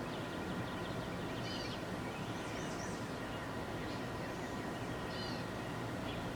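Small birds chirping in short, scattered high calls several times over a steady low background hum.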